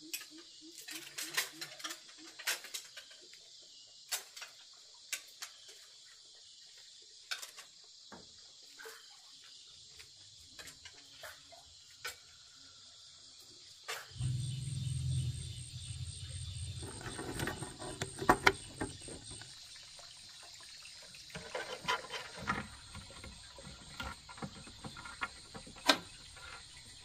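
Steady, high-pitched insect chorus, like crickets, with scattered sharp clicks and knocks. About halfway through, a low rumble with rustling and handling noise joins it.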